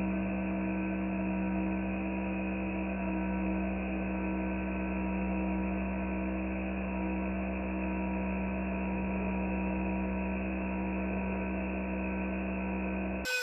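A steady, unchanging hum with a low droning tone.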